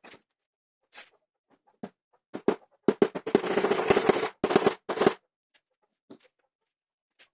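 Workshop tool work on wood: a few scattered sharp knocks, then a rapid rattling clatter lasting about a second and a half, followed by a few more knocks.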